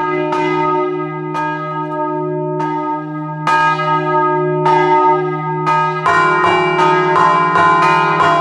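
A peal of three electrically swung church bells in E-flat, cast by De Poli in 1947 and rung full-circle in the Friulian style, heard loud and close in the bell chamber. At first the clapper strikes about once a second, each stroke ringing on with a deep hum beneath. About six seconds in, the strikes come faster, several a second, overlapping.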